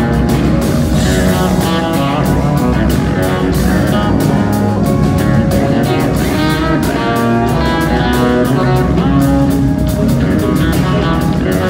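Live band music: electric bass and electric guitars playing over a steady drum beat.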